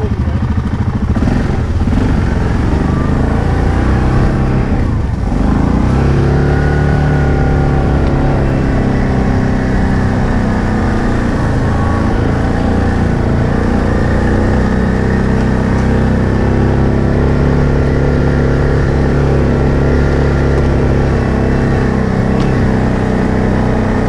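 ATV engine running under throttle as the quad drives through snow. The engine rises in pitch about five or six seconds in, then holds a steady pitch.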